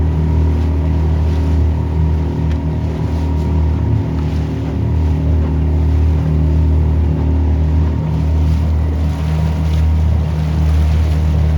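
A motorboat's engine running steadily under way, a constant low hum, with a rushing hiss of wind and water over it.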